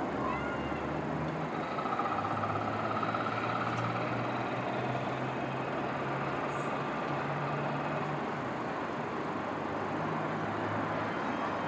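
Distant city traffic noise: a steady rumble with low engine hum that swells and fades, and a faint high squeal for a few seconds early in the stretch.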